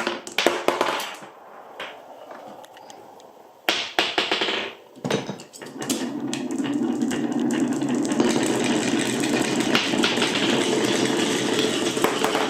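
Glass marbles clicking and knocking on a toy marble run, then, from about five seconds in, a dense steady rattle of many marbles rolling together along the track.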